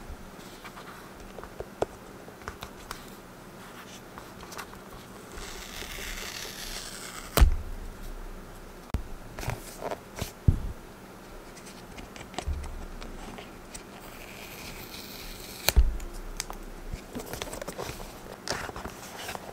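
Cardboard Apple Watch packaging being handled and slid apart: paper rubbing and scraping, with two longer sliding swishes that each end in a sharp knock, and scattered small taps.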